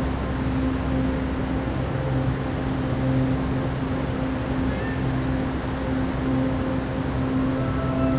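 Ambient relaxation music: low held drone tones over a steady rushing wash of noise, with no beat.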